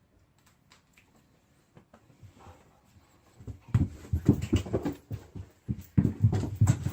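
A dog vocalizing in two loud runs of rapid, irregular sounds, starting about halfway in after a few faint clicks.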